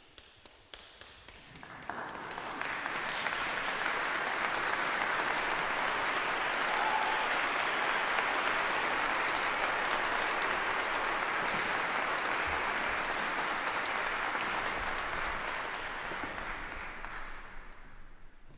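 Audience applause that builds over the first couple of seconds, holds steady, and dies away near the end.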